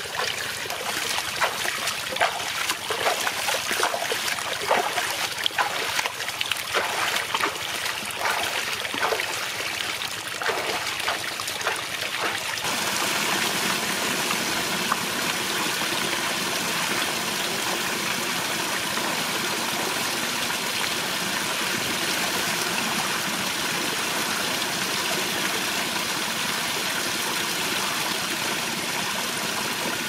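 Water sloshing and splashing irregularly as a person wades in a shallow pool, then, about a third of the way in, a sudden change to the steady rush of a small waterfall spilling over a rock ledge.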